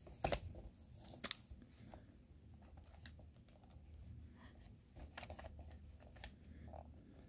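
Lego bricks being pulled apart and handled: faint, scattered plastic clicks and snaps, the sharpest about a third of a second in and again just past a second.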